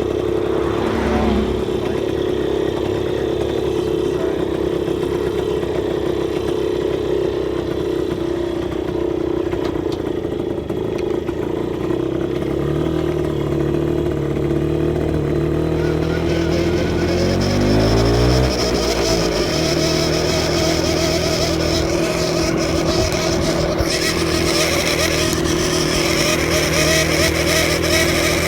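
A 1967 Kawasaki TR120 Roadrunner's small two-stroke single running under way, rising and falling in pitch once around the middle. It is muffled for the first half. A high, tea-kettle-like whistle comes from the fuel tank while riding; a new tank-cap gasket has not cured it.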